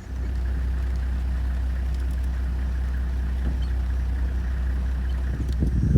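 An engine running with a steady low rumble, as heard from aboard a moving vehicle.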